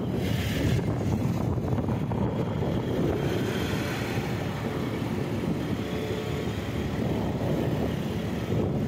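Motorcycle engine running steadily at cruising speed, heard from the rider's seat, with wind buffeting the microphone.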